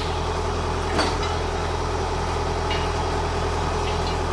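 An engine idling steadily, with one sharp click about a second in.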